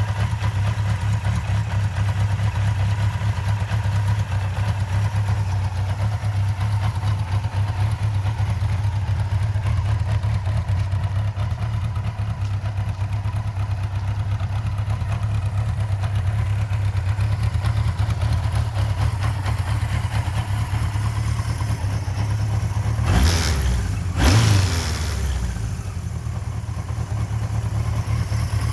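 Kawasaki Z1-R's air-cooled inline-four engine idling steadily, with two quick throttle blips near the end that rise and fall back to idle. The owner describes it as quiet, with no abnormal noises.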